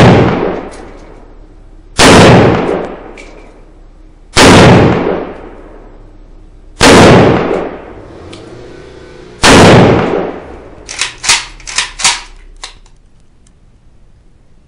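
Arsenal SLR-101s milled-receiver AK rifle in 7.62x39 firing steel-cased rounds in slow semi-automatic fire: four loud shots about two and a half seconds apart, each with a long echo. A quick run of fainter sharp cracks follows near the end.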